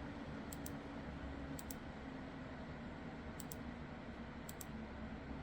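Newly built gaming PC running at idle: a steady low fan hum with a faint tone in it, broken four times by quick, sharp double clicks.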